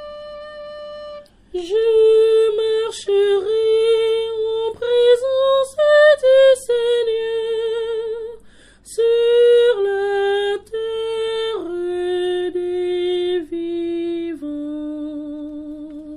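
A flute holds a note briefly, then a solo high voice sings a slow liturgical melody with vibrato, ending on a long lower held note: the sung refrain of the responsorial psalm.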